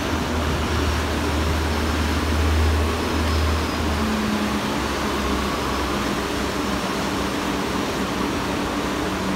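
Steady low engine drone under a rushing wash of water, with the drone strongest in the first few seconds: a pilot boat running at speed alongside a ship under way.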